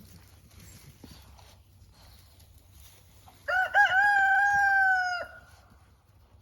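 Rooster crowing once, a little past halfway through: a few short broken notes running into one long held note that sinks slightly before cutting off.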